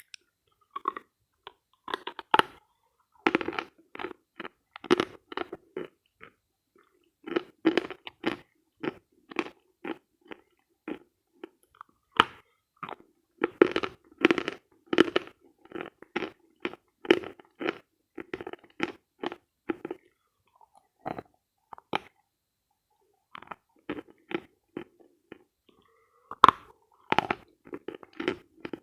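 Dry crunching and chewing of dense, dry eating chalk: short, sharp crunches a few times a second, with a pause of about two seconds a little past the middle.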